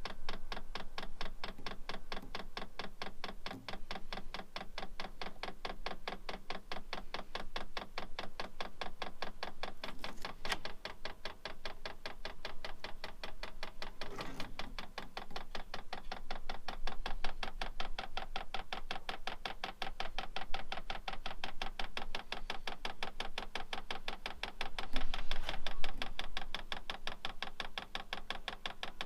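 Diesel heater's fuel dosing pump clicking in a fast, even rhythm during its priming cycle, pumping diesel through to push air out of the fuel line and filter. A few louder knocks sound along the way.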